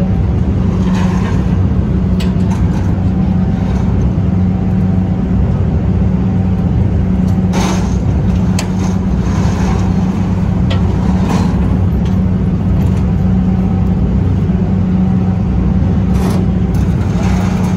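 A passenger ferry's engine running with a steady low hum while the boat lies at the pier, with a few short knocks and clanks scattered through it.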